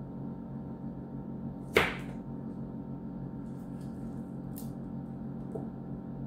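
Hand prep of shallots with a small knife: one sharp clack with a short ring about two seconds in, and a couple of faint ticks later, over a steady low hum.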